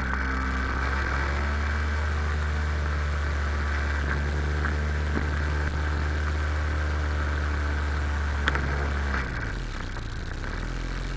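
Sea-Doo XP jet ski's 787 cc two-stroke twin engine running at a steady pace under way, with water rushing past the hull. A brief knock comes about eight and a half seconds in, and just after, the engine note drops and quietens.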